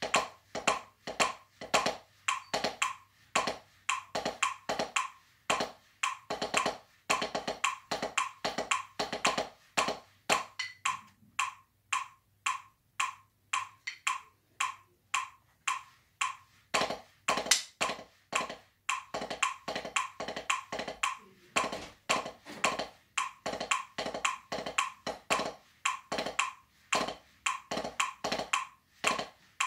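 Drumsticks striking a drum practice pad in a steady run of sharp taps, several a second, played as a timing exercise.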